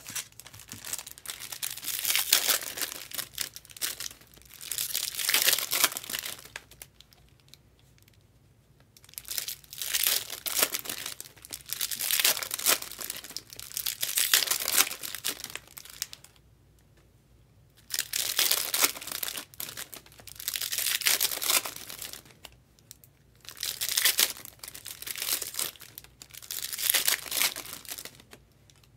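Foil trading-card pack wrappers being torn open and crinkled by hand, one pack after another, in bursts of a second or two separated by short pauses.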